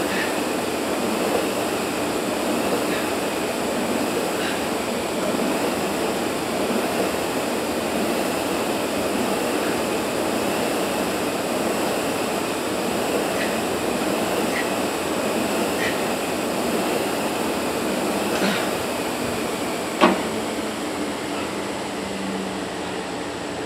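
Steady air noise of fans or air conditioning in a large gym, with a few faint ticks and one sharp knock about 20 seconds in.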